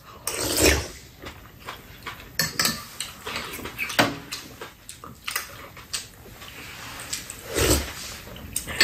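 Metal spoons and chopsticks tapping and clinking against bowls and a metal pan as two people eat, scattered light clicks, with chewing and mouth sounds between.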